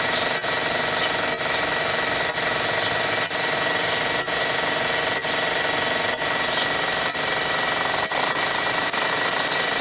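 Belt grinder running steadily, grinding the hardwood handle scales of a knife: an even rushing noise with a constant high whine and a brief dip about once a second.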